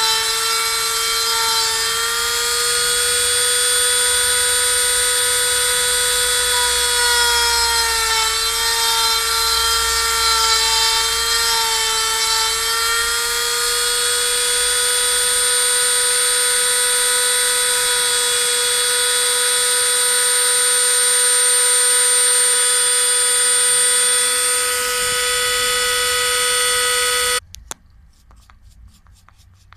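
A 135-watt handheld rotary tool spins a 3 mm bit as the spindle of a CNC router cutting pine. It gives a steady high whine whose pitch sags a little under load about a third of the way in. The whine cuts off suddenly near the end, leaving faint clicks.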